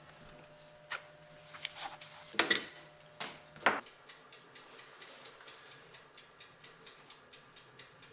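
A shoemaker's knife trimming the edge of a leather welt on a hand-welted boot: a handful of short, sharp cutting strokes in the first four seconds, the loudest about two and a half seconds in. After that only faint, rapid light ticks.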